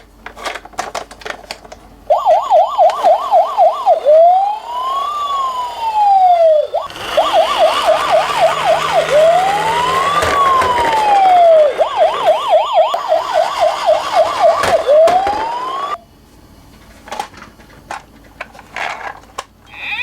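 Electronic siren of a toy minicar ambulance or police car, switching between a fast warble of about three rises a second and a slow rise-and-fall wail, with a fainter second siren sweeping over it. Plastic clicks and rattles come before it starts about two seconds in and after it stops about four seconds before the end.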